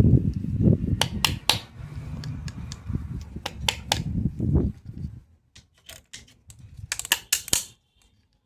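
Plastic toy doctor-kit pieces being handled, with a scatter of sharp clicks and taps and a quick run of them near the end, over a low rumble of handling in the first half.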